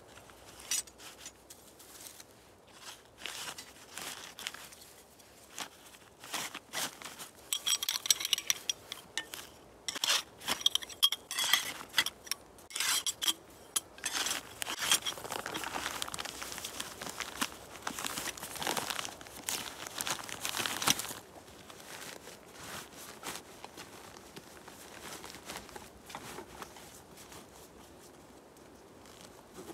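Metal tent stakes clinking and ringing against each other as they are handled and slid into a fabric stuff sack, with rustling of the sack and dry leaves. The clinks come in a cluster about a third of the way in, followed by several seconds of steady rustling, then only faint handling noise.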